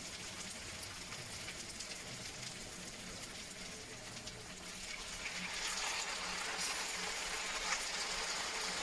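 Beef and pepper stir-fry sizzling in a frying pan. About five seconds in, spoonfuls of liquid go into the hot pan and the sizzle grows louder.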